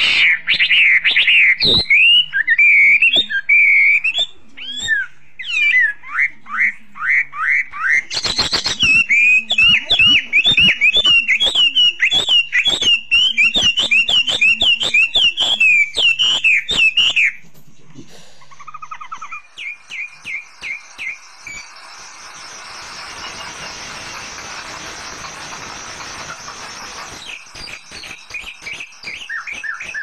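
Caged songbird singing a loud, fast series of whistled notes with a few sharp clicks, then dropping to quieter short runs of repeated notes over a steady hiss about two-thirds of the way through.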